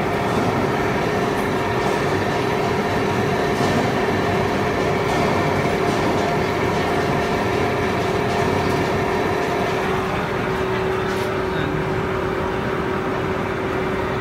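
MIC-100L vacuum mixing machine running, its main tank agitator and disperser (homogenizer) motors giving a steady mechanical hum with a clear held tone. About ten seconds in, some of the higher tones drop away while the main hum carries on.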